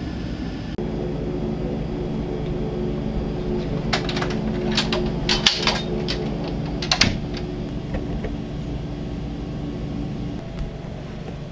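A steady low hum of several held pitches, with a short run of sharp clicks and clatters in the middle.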